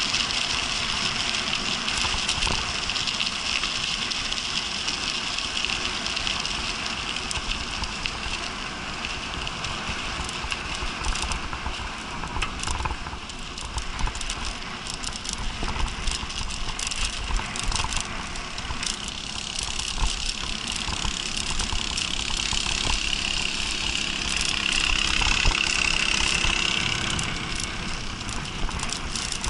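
Mountain bike riding over a gravel path and then a rough dirt and grass track. Steady tyre and rolling noise runs throughout, with frequent rattles and knocks as the bike goes over bumps.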